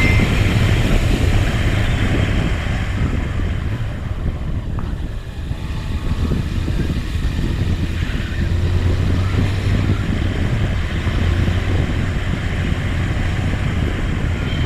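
Motorcycle engine running at a steady cruising pace, a low hum under wind rushing over the microphone, easing briefly about five seconds in.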